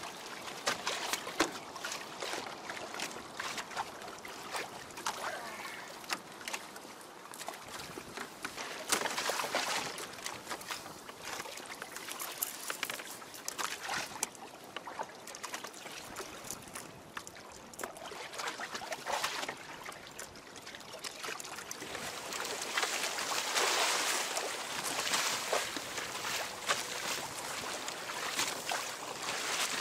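Sea water lapping and splashing against the hulls of a Hobie Adventure Island sailing kayak on choppy water, with many small clicks and knocks. There is a louder rush of water in the last few seconds.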